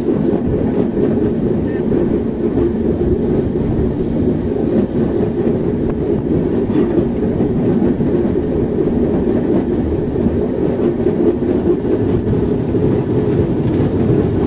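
Steady rumble of a moving tram on its rails.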